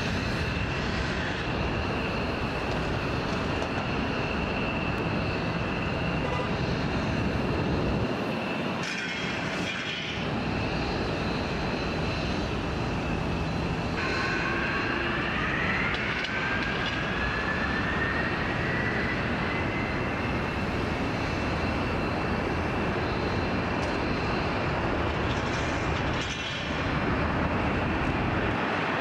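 Boeing 767's twin jet engines running on the runway with a steady high fan whine; about halfway through a second whine rises in pitch as the engines spool up for the takeoff roll.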